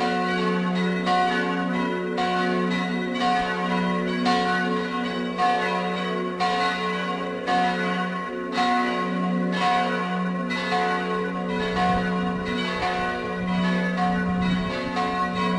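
Full peal of St. Peter's church bells, all the bells swinging and striking together in an unbroken, overlapping clang, the hum of each strike ringing on into the next.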